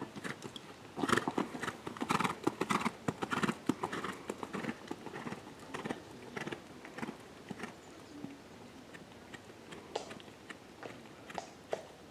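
Hoofbeats of a young Holsteiner gelding cantering on a sand arena surface, loudest and densest between about one and four seconds in, then growing fainter and sparser.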